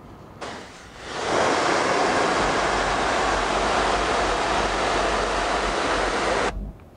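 Pressure washer jet spraying onto a plastic golf cart bumper: a steady hiss of water that comes in about half a second in, builds quickly to full strength, and cuts off suddenly near the end.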